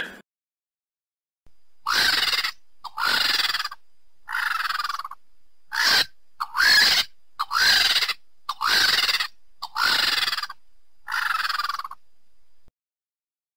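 An animal calling about nine times in a row, short calls of about half a second each with a pitch that rises and falls, roughly one a second.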